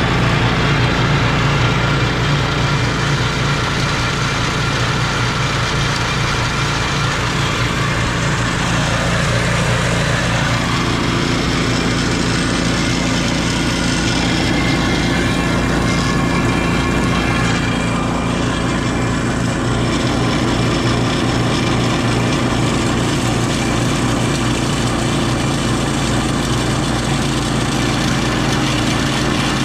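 Small engines running steadily, belt-driving a PE-100x150 jaw crusher and a chain mill as crushed ore is fed through and milled to dust. The engine note changes about ten seconds in.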